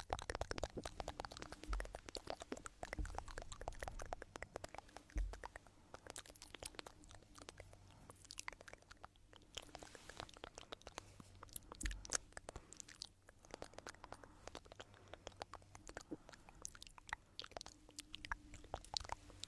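Stones rubbed and ground together close to the microphone: a dense, irregular crunching and scraping made of many small clicks, with a few soft low thumps.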